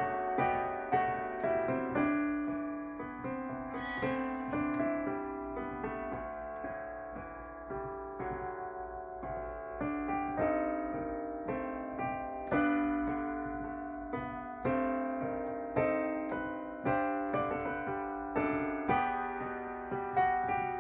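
Electronic keyboard with a piano voice playing a slow melody over chords, each note struck and dying away, recorded through a mono line connection into a Zoom AMS-24 audio interface.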